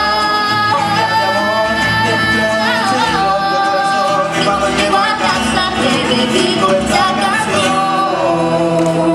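Live acoustic song: a boy's voice holds long sung notes that bend in pitch, without words, over two acoustic guitars.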